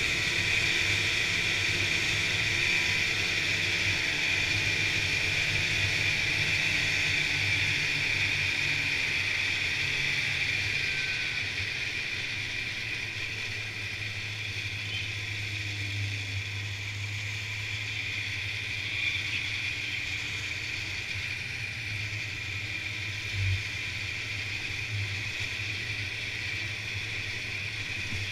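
Polaris Indy snowmobile's two-stroke engine running steadily under way on the trail, with a steady high whine over a low hum. It eases off a little about ten seconds in. There is a brief thump about three-quarters of the way through.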